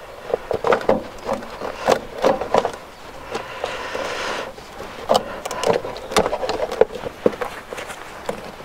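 Plastic engine cover of a Nissan Juke 1.5 dCi being worked loose by gloved hands: irregular clicks, creaks and knocks of plastic against plastic and hoses, with rubbing and rustling between them.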